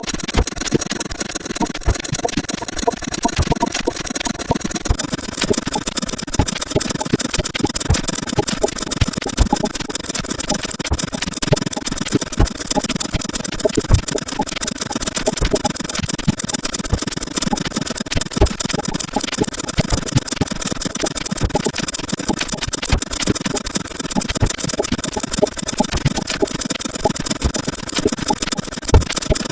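A dense, unbroken stream of short clicks and sound-effect snippets sped up 64 times, running together without a pause. The high end of the sound changes slightly about five seconds in.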